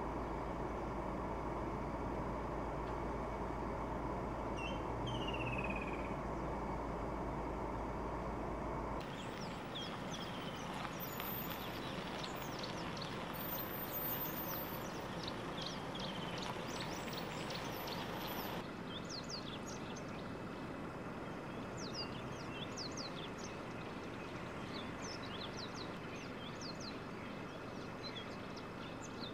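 Many short, high chirping calls scattered over a steady outdoor hiss. For the first third a low idling-vehicle rumble sits under the hiss, and it stops abruptly at a cut.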